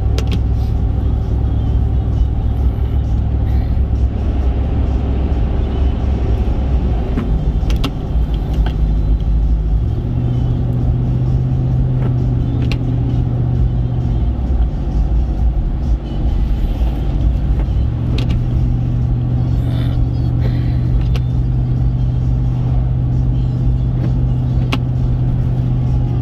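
Steady road and engine noise inside a moving pickup truck on the highway, with music playing; a deep bass line holds each low note for a few seconds before moving to the next.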